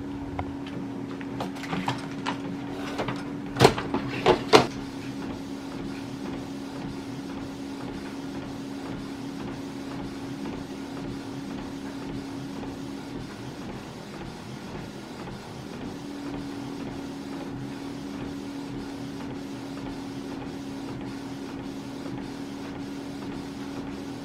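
Canon inkjet printer printing a sheet of labels: a steady mechanical hum, with a few sharp clicks about four seconds in. The hum stops for a couple of seconds a little past halfway, then starts again.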